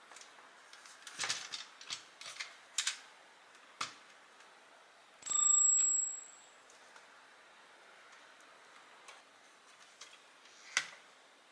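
Small sharp clicks and light knocks of parts being handled, with a short bright metallic ring about five seconds in, the loudest sound.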